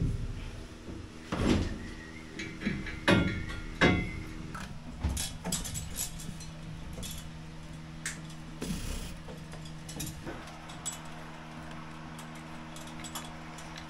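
Stainless coolant pipes and silicone hose joiners being handled and pushed onto the engine: a few knocks in the first four seconds, then lighter clicks and taps, over a steady low hum.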